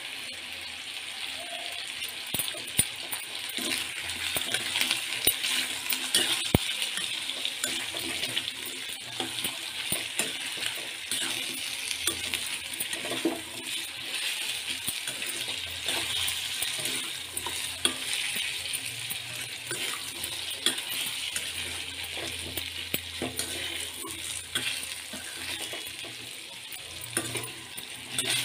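Potato sticks frying in oil in a stainless steel kadai with a steady sizzle, while a spatula stirs them, with frequent sharp clinks and scrapes against the steel pan.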